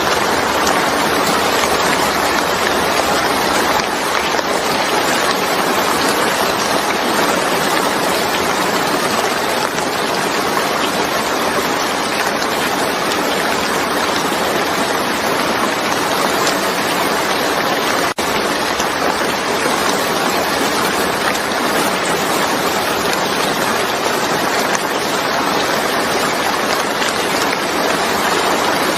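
Steady, heavy rain: an unbroken even hiss of falling water, with a split-second dropout a little past the middle.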